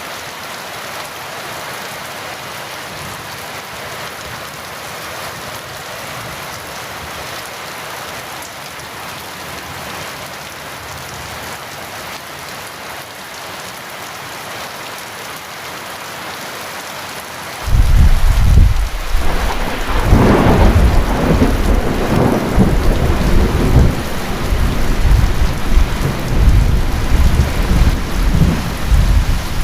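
Heavy rain falling steadily. About two-thirds of the way through, thunder breaks in suddenly with a loud, low rumble that swells a few seconds later and keeps rolling under the rain.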